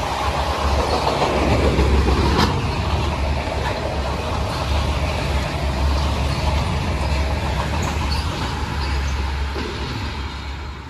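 Freight train of autorack cars rolling past: a steady heavy rumble of wheels on rail, with a sharp click about two seconds in. The sound fades away near the end as the rear of the train goes by.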